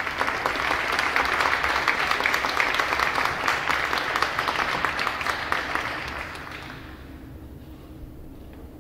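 Audience and students applauding, a dense patter of clapping that dies away about six to seven seconds in.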